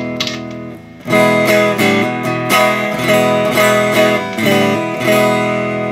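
Shark electric guitar with humbucker and single-coil pickups, played clean through an amplifier to test a customer's newly wired circuit. A chord dies away, then about a second in a run of picked chords and notes follows at roughly two to three a second.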